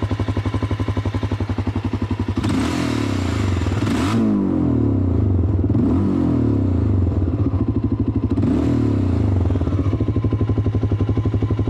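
Honda Dominator NX650's single-cylinder engine running with the bike stationary: it idles with an even thump, is revved about two and a half seconds in and held up with rises and falls for several seconds, then settles back to idle near the end. The rider is listening for an engine noise that he cannot explain.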